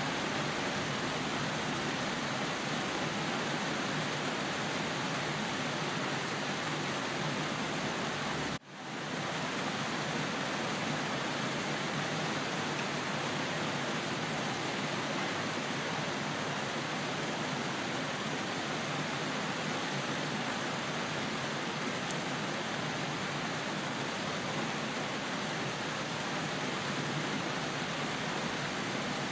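Steady rain falling. About eight and a half seconds in it cuts out for an instant and swells straight back, like an edit splice in the loop.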